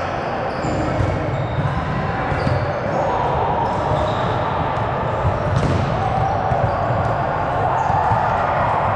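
Indoor volleyball game in a gym: the ball being hit and bouncing, short squeaks of shoes on the court and players' voices in a steady hall din, with a sharper hit a little past halfway.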